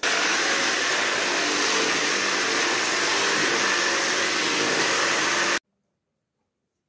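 Stick vacuum cleaner running at a steady, loud level: an even rushing noise with a faint hum underneath. It cuts off suddenly about five and a half seconds in.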